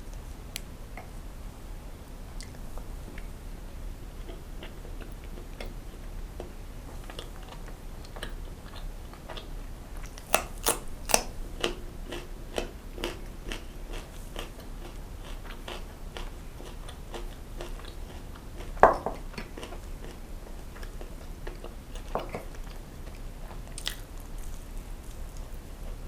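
Close-miked eating: chewing and biting into fried food, with wet mouth clicks. There is a quick run of crisp, crunchy bites about ten seconds in and a single louder bite near the two-thirds mark.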